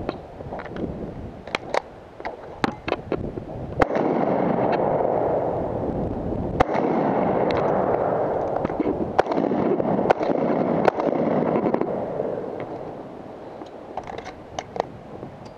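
Several sharp gunshot cracks in the first few seconds, then a steady rushing noise of wind and movement on a head-worn camera while the shooter runs, with scattered sharp cracks through it, fading near the end.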